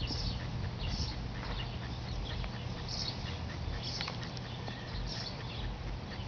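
Scratchy rustling of soil and grass as a pinpointer probe is worked around a small dug hole in turf, in short bursts about once a second with a few faint clicks, over a low rumble.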